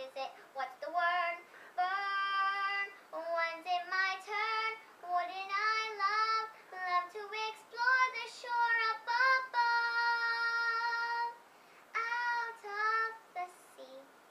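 A young girl singing solo in a high, clear voice. She holds one long steady note about two-thirds of the way through, pauses briefly, then sings a few more notes.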